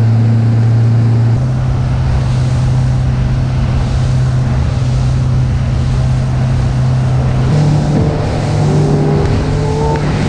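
A motorboat's engine running steadily at speed, with rushing wind and water. Its low note steps up in pitch about a second in and again about two-thirds of the way through.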